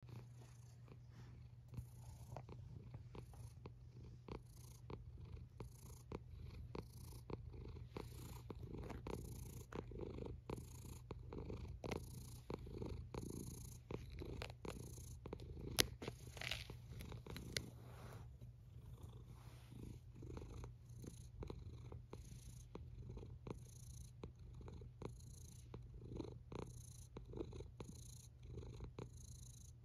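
Domestic cat purring steadily in a rhythmic low hum, with one sharp click about sixteen seconds in.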